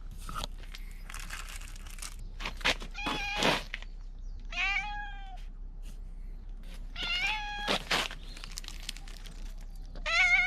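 Stray cat meowing loudly and repeatedly: about four drawn-out meows, one of them falling in pitch.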